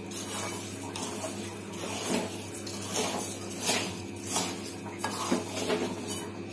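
Wooden spatula stirring and scraping dry granulated sugar around an aluminium pan, in regular strokes about three every two seconds. The sugar is being heated without water on a medium flame, slowly melting into syrup.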